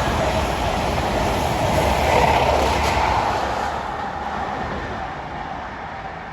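CrossCountry HST, a high-speed train with Class 43 diesel power cars, passing at speed, its engine and wheel noise swelling about two seconds in and then fading away into the distance.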